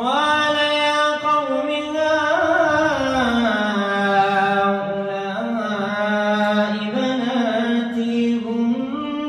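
A man's voice chanting Quran recitation during Tarawih prayer, in a slow melodic style. A new phrase begins right at the start after a short pause, with long held notes gliding up and down in pitch.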